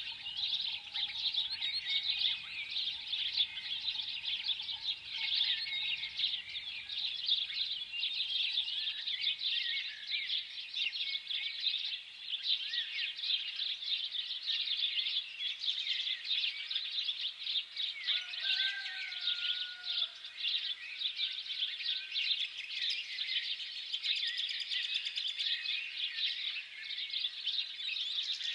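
Many small birds chirping together in a dense, continuous chorus of quick high chirps, with a brief wavering lower whistle about two-thirds of the way through.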